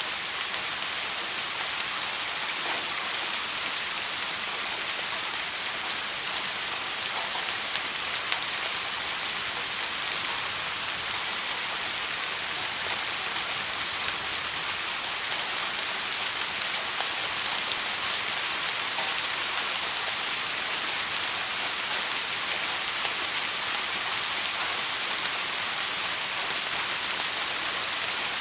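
Steady soft rain: an even hiss of falling rain with scattered faint drop ticks, unchanging throughout.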